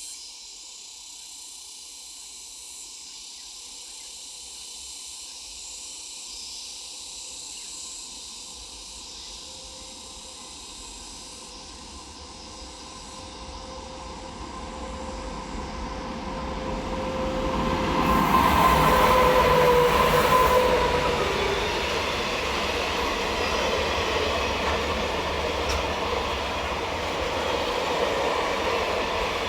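A train approaching and running through a railway station: the rail noise builds from about halfway, is loudest about two-thirds of the way in with a brief high tone over it, then the wagons keep rolling past with a steady rumble.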